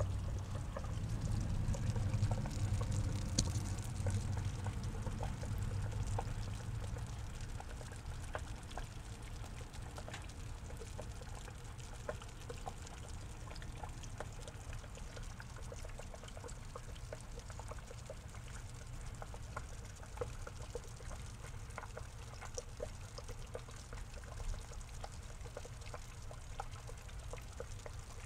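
Water trickling and pouring steadily into a small garden pond, with many faint ticks through it and a low rumble that is stronger for the first several seconds.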